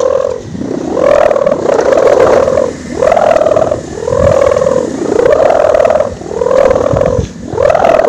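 Bamboo sendaren (Javanese kite hummers, bows strung with a ribbon) swung by hand through the air, their ribbons humming. The hum rises and falls in pitch in about one swell a second.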